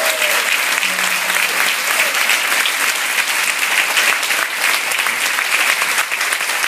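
Many people clapping together in sustained, steady applause.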